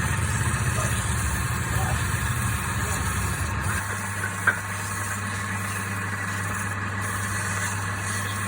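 Wood lathe motor running steadily. A rougher low rumble changes to a smooth even hum about four seconds in, and a single sharp click follows shortly after.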